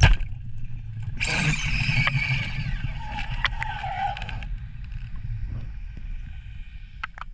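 Band-powered speargun fired underwater: a single sharp crack at the start as the rubbers release and the spear leaves the gun. About a second later a loud rushing, whirring noise follows for about three seconds, with a tone that falls near the end.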